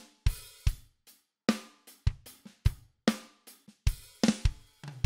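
Recorded acoustic drum kit playing a steady groove of kick, snare and hi-hat, with a cymbal crash about four seconds in. It plays back with the Bettermaker EQ232D Pultec-style EQ switched on over the overhead mics, which boosts around 10 kHz and 30 Hz and cuts the mids.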